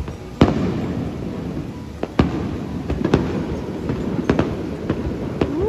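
Fireworks display: aerial shells bursting with sharp bangs, about five of them, the loudest about half a second in, with crackling and rumble between them.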